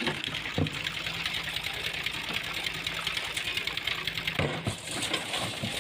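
A machine engine running steadily with a fast, even clatter, with a steady low hum through most of it.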